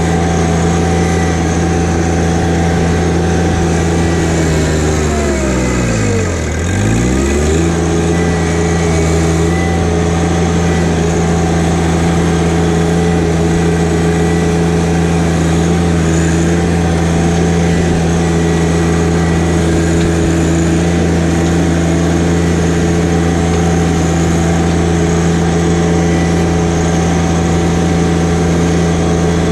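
John Deere 1025R compact tractor's three-cylinder diesel engine running steadily at a high, even speed. About five seconds in its pitch drops sharply, then climbs back to the same speed within about two seconds.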